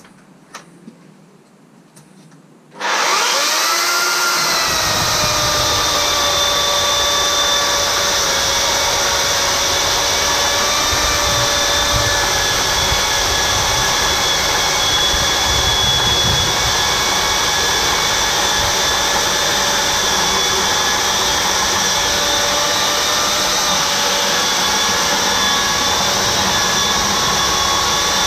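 Makita corded electric chainsaw switched on about three seconds in, its motor whining up to speed and then running steadily as the chain cuts through a large log, a few light clicks before it starts.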